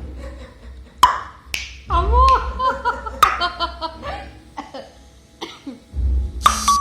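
Two sharp clicks, then a six-month-old baby's high-pitched babbling and squeals, the pitch swooping up and down.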